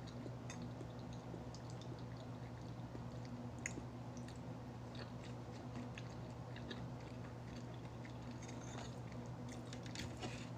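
A person chewing and biting food close to the microphone, with scattered small crunching clicks over a steady low hum.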